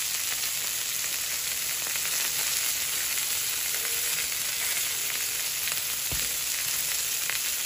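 Floured white fish fillets sizzling steadily as they fry in oil in a nonstick pan. In the second half, a plastic spatula moves the fillets, with a few light clicks and a soft knock about six seconds in.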